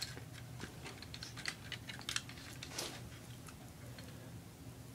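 Faint, scattered light clicks and taps from handling the Lego EV3's infrared remote control, over a low steady hum.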